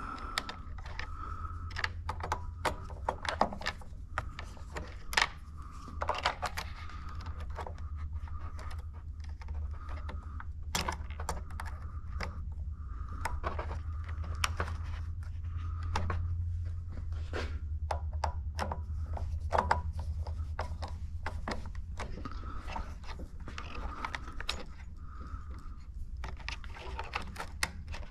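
Small metal clicks, taps and scrapes of a screwdriver and wire terminals being worked at a water heater thermostat as its wires are hooked back up, over a steady low hum.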